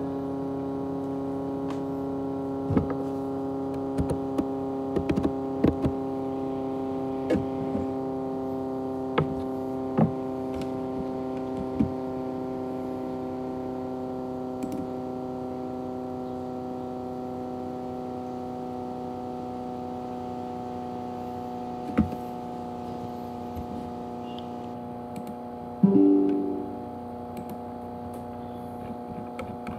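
A steady held chord of several tones, slowly fading, with scattered sharp clicks and one loud short pitched hit near the end that dies away quickly.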